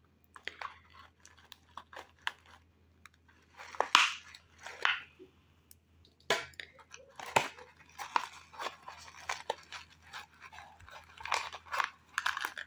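Irregular crunching and rustling as an orchid's root ball of moss and potting substrate is worked loose from a cut-open clear plastic pot, with small clicks and crackles of the container, loudest in two bursts about four and seven seconds in.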